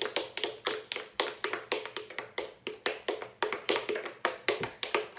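Tap shoes' metal taps striking a hard floor in tap dancing: a quick, uneven run of sharp taps, about four or five a second.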